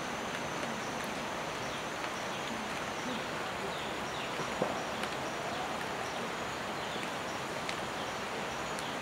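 Steady rain falling on jungle foliage, with now and then a sharp single drip. A thin, steady high-pitched tone and faint short chirps sit above the rain.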